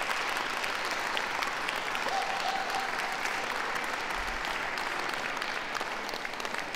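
Crowd applauding, steady clapping from many hands.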